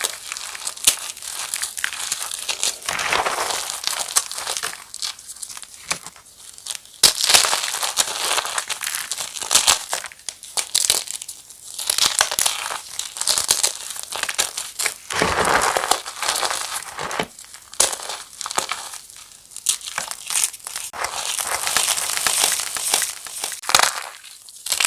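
Fresh chalk mini blocks being crushed into crispy chunks: dense, irregular crunching and crackling with many sharp snaps.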